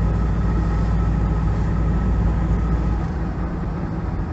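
GAZelle Next diesel van driving, heard from inside the cab: a steady low engine drone with road noise and a faint high whine. The engine note drops and the whine fades about three seconds in.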